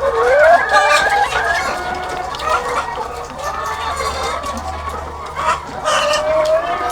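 A large flock of egg-laying hens clucking and calling over one another, a dense, unbroken chorus of overlapping calls.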